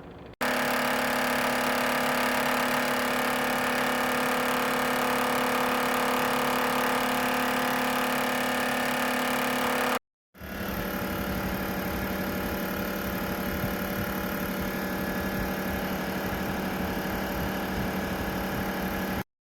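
Ceramic space heater's fan running steadily with a low hum, in two stretches with an abrupt silent break about halfway through; it cuts off suddenly near the end.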